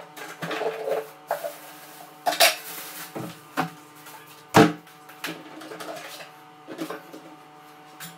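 Scattered knocks and clatter of cleaning gear and fixtures being handled in a small tiled bathroom, with a sharp knock about four and a half seconds in that is the loudest, over a faint steady hum.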